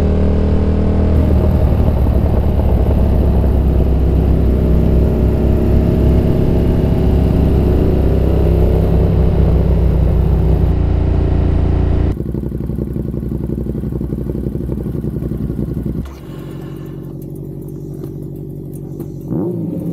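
Motorcycle engine running under way with wind rush, its pitch rising and falling with the throttle. About twelve seconds in the sound drops abruptly to a quieter engine note, and it settles lower and steadier near the end.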